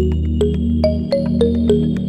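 Electronic background music: a quick, even run of plucked synth notes, about three or four a second, over a sustained low synth chord.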